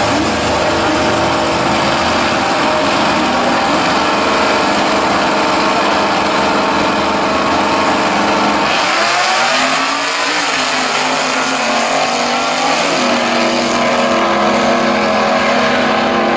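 Two drag-racing cars' engines running at the starting line, held steady while they stage, then launching about nine seconds in, the engine pitch climbing as they accelerate away down the strip.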